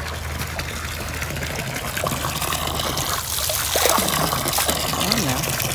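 Hot spring water pouring from a pipe into a stone soaking tub, a steady splashing pour that grows louder from about two seconds in.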